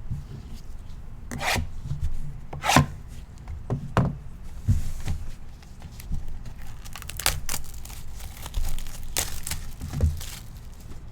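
Packs of baseball trading cards being torn open by hand, several sharp rips and wrapper crinkles in a row.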